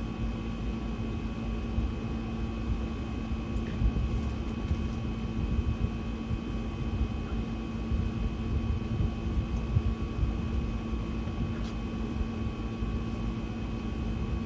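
Steady mechanical hum with a faint whine and a low rumble, like an appliance or fan motor running, with a couple of faint ticks about four seconds in and near the end.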